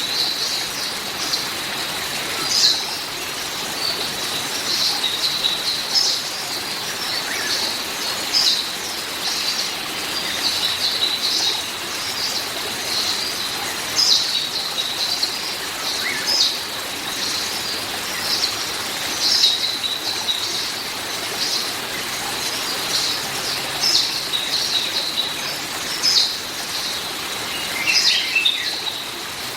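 Songbirds chirping and twittering continuously in quick high calls, over an even background hiss and a faint steady high thin tone.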